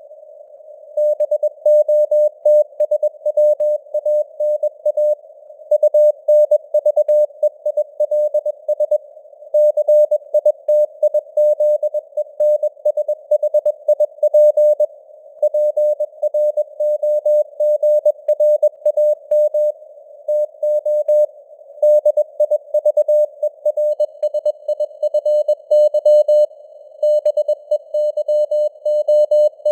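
Morse code (CW) at 21 words per minute: a single tone of about 600 Hz keyed on and off in dots and dashes, over a narrow band of simulated radio hiss, with the signal strength fading up and down (QSB).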